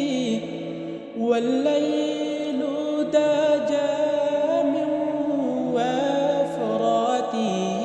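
An Islamic gojol (devotional song) being sung: one melodic voice with long held, bending notes over a steady low drone. It breaks off briefly about a second in, then goes on.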